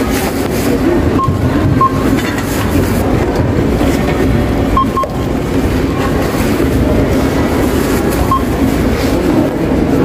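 Supermarket checkout ambience: a steady din of indistinct voices and low hum, with short electronic checkout beeps now and then, a couple of them in quick pairs.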